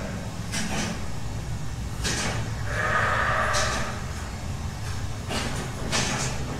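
A goat bleats once, about three seconds in, over the steady low hum of the milking machinery. Short metallic clanks from the parlour's stalls and fittings come every second or two.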